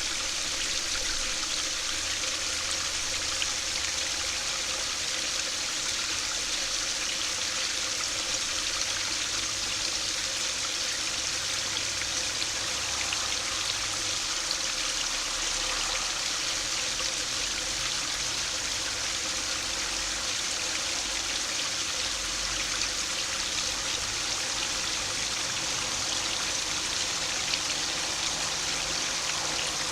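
River water flowing steadily, an even, unbroken hiss with no pauses.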